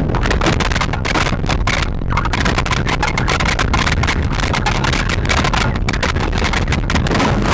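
Loud, harsh amplified noise from a homemade electro-acoustic instrument, a wooden box fitted with strings, metal rods and spiked rotating discs, worked by hand at one of the discs. The noise stutters in rapid, irregular choppy pulses.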